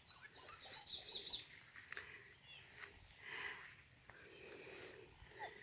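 Faint outdoor birdsong, a quick run of high chirps in the first second and a half, over a steady high-pitched insect drone.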